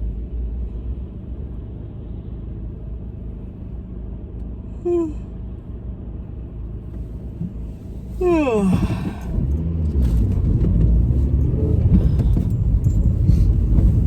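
Steady low road rumble inside a moving car, growing louder from about ten seconds in. About eight seconds in a person yawns aloud, the pitch sliding down over about a second, after a brief falling vocal sound about five seconds in.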